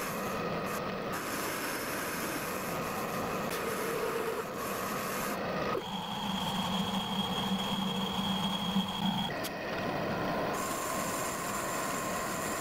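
Metal-turning lathe running steadily while turning the tapered flange of a small steel locomotive wheel. The sound changes abruptly about six seconds in, carrying a steady high whine and a stronger low hum until about nine seconds, then returns to the earlier running sound.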